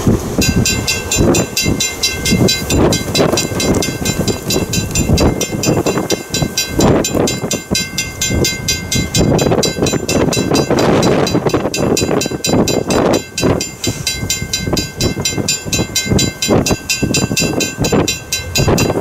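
A railroad bell ringing rapidly and without pause, with a steam train working beneath it. The bell starts just after the opening and stops abruptly.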